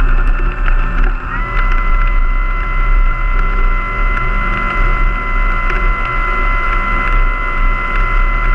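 Large radio-controlled Mitsubishi A6M Zero model's motor and propeller running close to the microphone. The pitch steps up about a second in, then holds steady.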